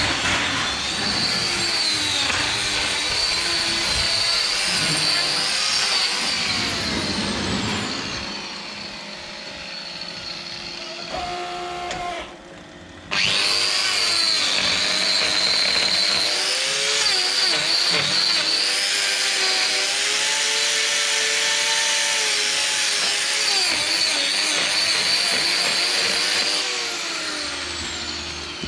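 Angle grinder with a hoof-trimming disc running and cutting into a cow's hoof: a steady high whine over grinding noise. It eases off partway through, stops briefly, then runs hard again and winds down near the end.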